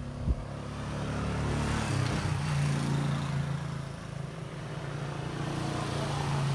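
A motor vehicle's engine running close by, its hum growing louder over the first two seconds, easing a little around four seconds and building again near the end.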